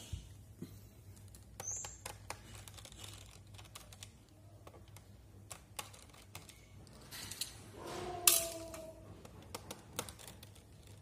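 Scattered small clicks and taps of a screwdriver and tiny screws being worked out of a laptop's plastic bottom cover, with one louder sharp click about eight seconds in.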